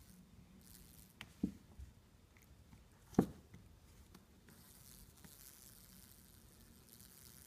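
West Highland White Terrier puppy pouncing on a hardwood floor, its paws and body knocking on the boards. There are a couple of soft knocks about a second and a half in, then one sharper, louder knock about three seconds in.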